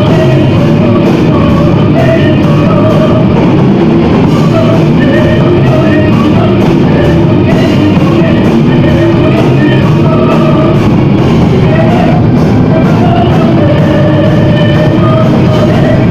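Gothic metal band playing live and loud: drums and distorted guitars in a dense, unbroken wall, with a wavering melodic line over them.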